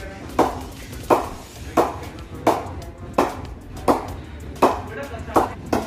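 SS Gunther English willow cricket bat being struck on its face again and again in a ping test: about nine sharp knocks, each with a short ring, evenly spaced a little under a second apart. The sound is heard as a soft yet crisp ping, which is taken as a sign of strong hitting power.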